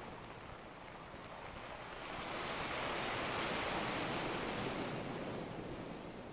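Ocean surf: a rushing wash of a wave that swells from about two seconds in and dies away near the end.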